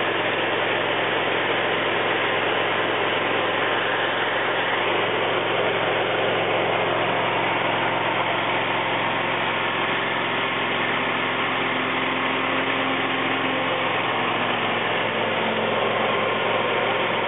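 The motorized picnic table's engine idling steadily, with an unchanging low hum.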